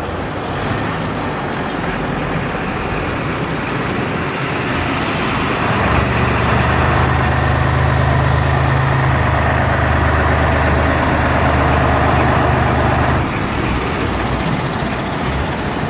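Diesel engines of fire engines running and moving off. One truck's engine is close and loud, a steady low drone from about six seconds in until about thirteen seconds, over the quieter engines of the other fire trucks.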